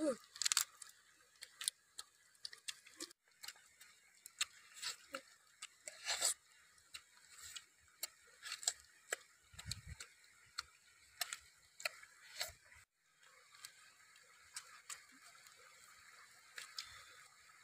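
Close-up eating sounds: irregular wet smacks, clicks and crunches of a boy chewing and gnawing cooked chicken meat off the bone and chicken feet. A faint steady rush of a shallow stream runs behind, and one low bump comes about ten seconds in.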